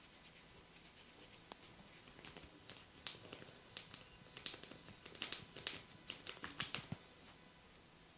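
Sharp, crisp snaps from a barber's hands working a client's head and hair during a head massage: a scattered run of a dozen or so, starting about two seconds in and stopping near the end.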